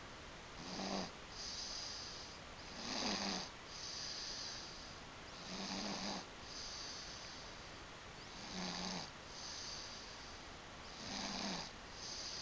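Slow, regular snoring: five snores about every two and a half to three seconds, each a raspy breath with a low buzz, with softer airy breaths between them.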